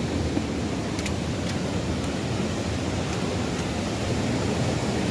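Waterfall: a steady rush of water falling over rocks.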